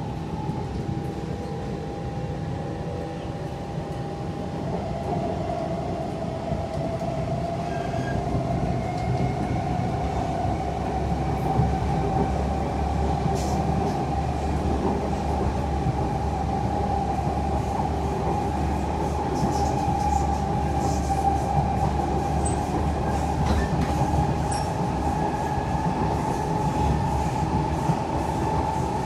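Siemens C651 metro train running between stations, heard from inside the car: a steady rumble of wheels on the track, with a whine that slowly rises in pitch and grows a little louder a few seconds in.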